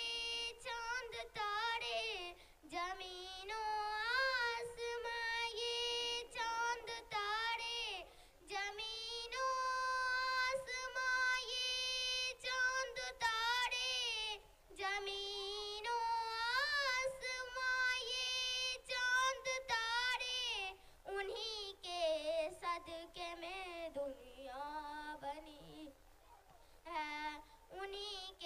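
A young girl singing a naat, an Urdu devotional poem in praise of the Prophet, solo and unaccompanied into a microphone. She sings in long held phrases with a wavering pitch and short breaks between lines.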